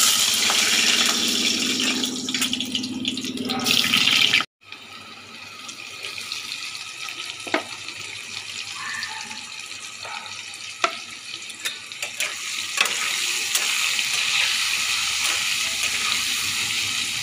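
Potato chunks sizzling as they fry in hot oil in a steel kadai: a loud hiss as they go in, then after a cut a quieter steady sizzle that builds toward the end. A few sharp clicks of a metal spatula against the pan.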